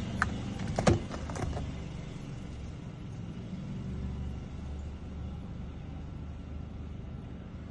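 A vehicle engine idling with a steady low rumble, with a few sharp clicks and knocks in the first second and a half.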